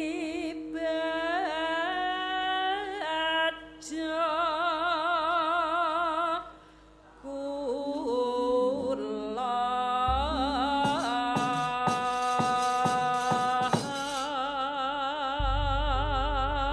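A female Javanese sinden sings long, held notes with a wide vibrato to gamelan accompaniment, pausing briefly between phrases. From about ten seconds in, a run of drum strokes plays under the voice.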